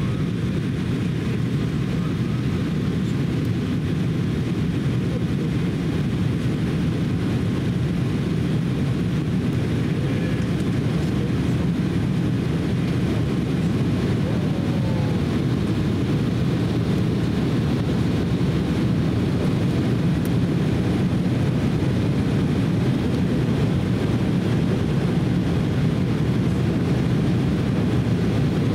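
Steady cabin noise of an Embraer 170 airliner on its descent, heard from a window seat beside its wing-mounted GE CF34 turbofan engine: an even rumble of engine and airflow, heaviest in the low range.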